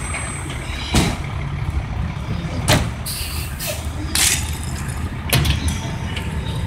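Fire engine's diesel engine idling with a steady low rumble. Several short sharp cracks and hisses break in at irregular intervals.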